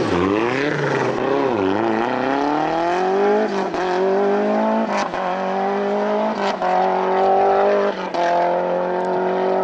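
Rally car engine blipping and dropping in revs through a hairpin, then pulling away, its note climbing through four upshifts about every second and a half, each with a short break and a crack.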